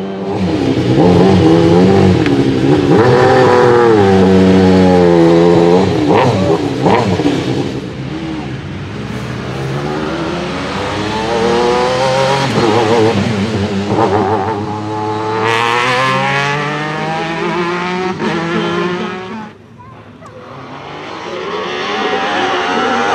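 Alfa Romeo 155 V6 TI racing car's V6 engine revving hard, the pitch climbing and falling again and again through throttle blips and gear changes. About three-quarters of the way through it drops away sharply, then builds again.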